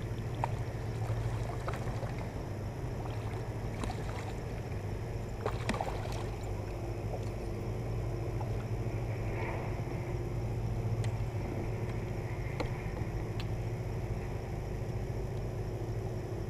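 Water splashing and sloshing beside a kayak as a hooked bass is played at the surface, with a few sharp splashes and clicks over a steady low hum.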